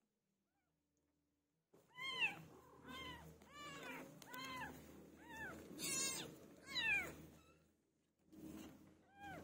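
Young kittens mewing: after a short silence, a quick run of high mews that rise and fall in pitch, about two a second, then a pause and two more mews near the end.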